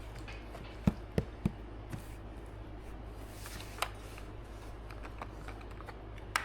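A few sharp clicks and light knocks, like small tools or metal parts being handled, over a steady low hum. Three come close together about a second in, with single ones near the middle and at the end.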